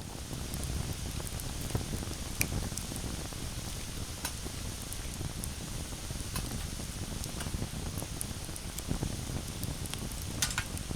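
Steady rush of a valley stream, with scattered sharp crackles and pops over it.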